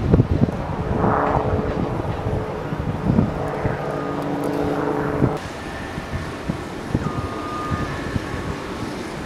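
Outdoor field sound of wind on the microphone with a steady engine hum, and a few low knocks near the start. The hum stops and the sound changes abruptly about five seconds in.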